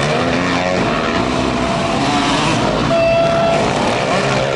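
Several motocross bikes racing around the track, their engines revving up and down together. About three seconds in, a short steady horn blast sounds over them.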